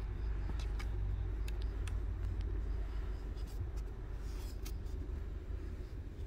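Steady low outdoor background rumble with a few faint sharp clicks scattered through it.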